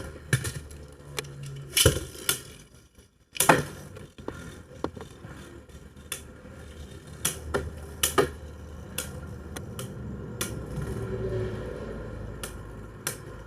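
Two Beyblade Burst spinning tops, Nightmare Longinus and Zillion Zeus, spinning and clashing: a steady low spinning hum broken by sharp plastic-and-metal clacks each time they hit, roughly once a second.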